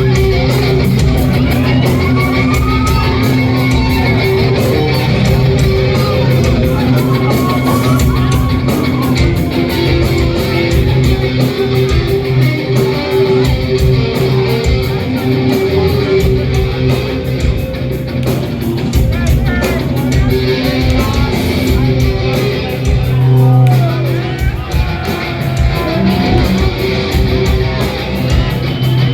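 A heavy metal band playing loud and live, with distorted electric guitars and drums.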